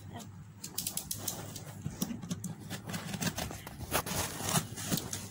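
Box cutter slitting the packing tape on a cardboard box, with irregular scratching and crinkling of tape and cardboard.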